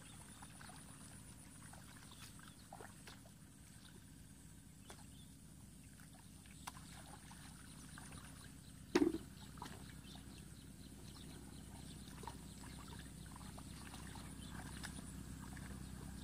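Hands groping and sloshing through shallow muddy water while feeling for fish, with small scattered splashes and one louder splash or slap about nine seconds in.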